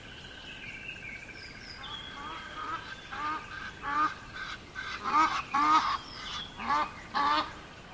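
Geese honking in a series of short calls that grow louder and more frequent in the second half, with fainter higher bird chirps early on.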